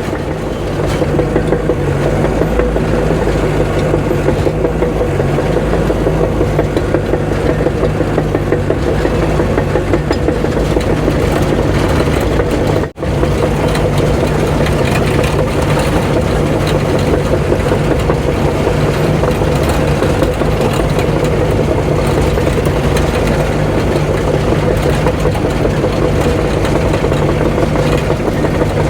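Heavy-equipment diesel engine running steadily under work, its pitch holding level throughout, with a sudden brief break about 13 seconds in.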